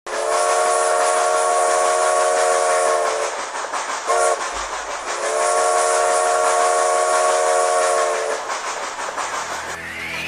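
Steam locomotive chime whistle blowing two long blasts of several tones at once, with a short toot between them, over a steady hiss of steam. A rising sweep begins near the end.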